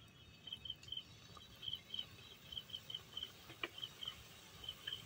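Gulab jamun dough balls frying in medium-hot oil in a kadai: faint sizzling with a few sharp crackles. Behind it a high chirping repeats a couple of times a second, often in pairs.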